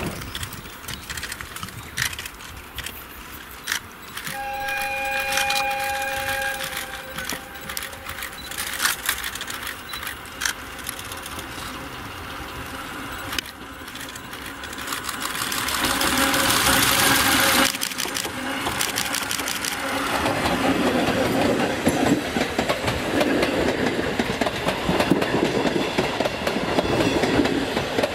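Oigawa Railway E101 electric locomotive, hauling four old passenger coaches, approaching and passing. Its horn sounds a steady two-note chord for about two and a half seconds a few seconds in, and more faintly again a little past halfway. After that the wheels clatter over the rail joints, growing louder as the train goes by near the end.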